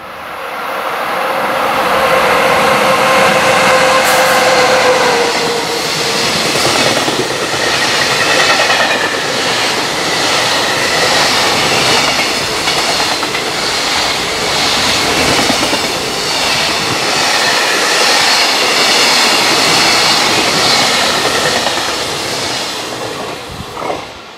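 Freight train of container wagons passing at speed, its wheels clattering over the rail joints in a steady rhythm. A steady tone is heard for the first few seconds, and the sound fades near the end as the last wagons go by.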